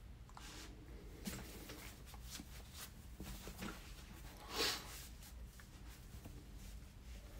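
Faint rustling and light clicks of trading-card packaging and cards being handled, with one louder brushing rustle about four and a half seconds in.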